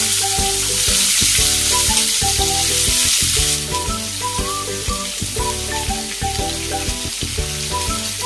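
Sliced ivy gourd (tindora) going into hot oil in a kadai, sizzling loudly. The sizzle is strongest for the first three seconds or so, then settles to a steady, slightly quieter frying.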